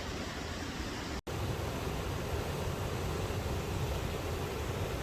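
Steady rushing roar of a small waterfall, heavy in low rumble. It drops out for an instant about a second in and comes back slightly louder.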